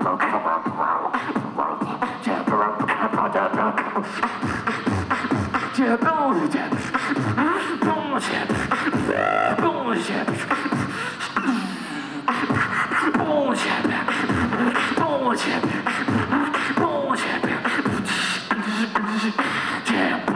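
Live beatboxing over a PA system: rapid vocal drum beats and clicks mixed with short sweeping pitch effects, kept up without a break.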